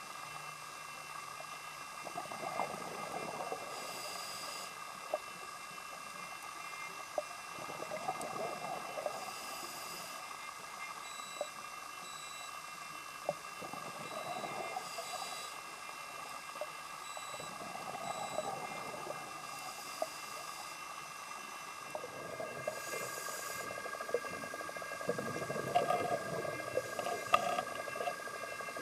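A scuba diver breathing through a regulator, heard underwater: a short hiss on each inhale, then a gush of exhaled bubbles, repeating about every five seconds. Under it run a steady faint whine and scattered sharp clicks.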